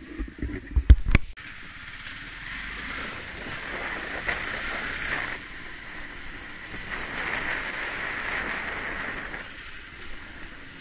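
A few heavy knocks of handling noise on the camera's microphone about a second in, then a steady rushing noise that swells and fades.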